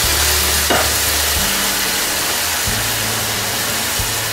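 Wine sizzling and hissing as it hits a hot pan of arborio rice for risotto, with a wooden spoon stirring; a short knock comes a little under a second in.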